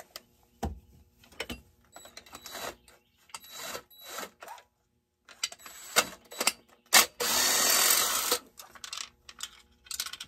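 Clicks, scrapes and clatter of hand tools and parts being worked on a Redmax GZ360 chainsaw's muffler, then a cordless drill/impact driver runs in one short burst of about a second and a half roughly two-thirds of the way through.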